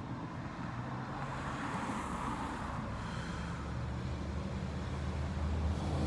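Steady low hum heard from inside a car, with road traffic passing outside; a passing vehicle swells up and fades about one to three seconds in.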